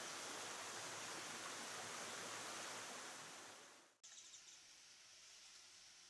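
Steady rush of a flowing stream that fades out about three to four seconds in. A quieter background with faint high chirps follows.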